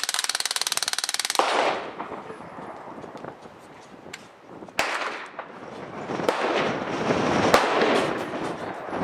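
Crosman DPMS SBR CO2 full-auto BB gun firing a rapid burst for about a second and a half. A few separate sharp cracks follow later, one near the middle and a louder one near the end.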